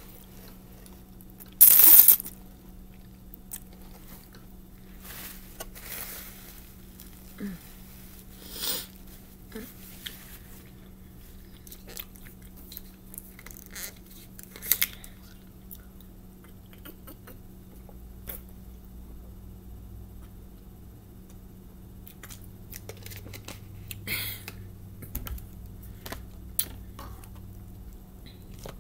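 A person eating spaghetti close to the microphone: chewing and small wet mouth and fork noises, with a loud, brief noisy burst about two seconds in and a louder click near the middle as she drinks from a plastic water bottle. A faint steady hum lies under it all.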